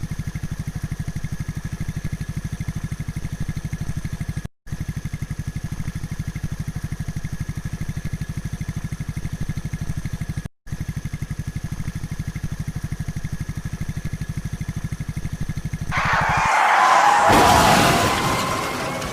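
A vehicle engine running with a fast, even pulse, broken twice by brief dropouts to silence. Near the end the engine sound stops and a loud rushing whoosh swells and fades.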